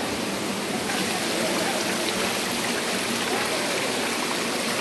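Water rushing steadily over rocks and cascading down stone steps into a shallow stream, a little louder from about a second in.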